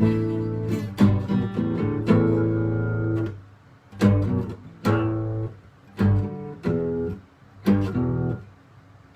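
Acoustic guitar strumming chords, roughly one strum a second, each chord left to ring. From about halfway on, the chords die away into short pauses between strums.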